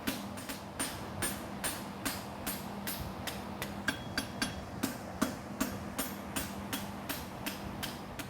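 Hand hammer striking a hot steel horseshoe bar on an anvil in a quick, even rhythm of about four blows a second, drawing out the metal. A steady low hum runs underneath.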